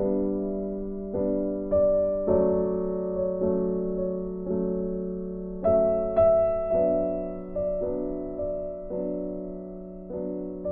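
Background music: a slow keyboard melody in a piano tone, notes struck one at a time, each dying away before the next.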